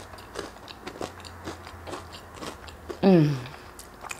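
Close-miked chewing of crispy-edged pancakes: soft crunches about twice a second, and a loud "mmm" of enjoyment falling in pitch about three seconds in.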